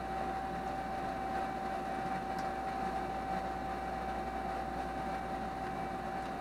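Steady room noise: an even hiss with a constant steady hum.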